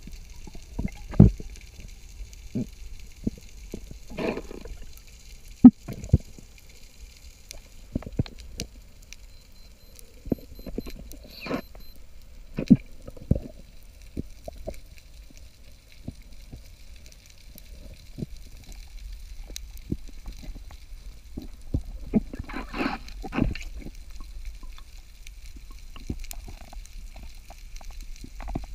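Underwater sound picked up through a camera's waterproof housing: a low water rumble with scattered clicks and a few sharp knocks, the loudest about six seconds in.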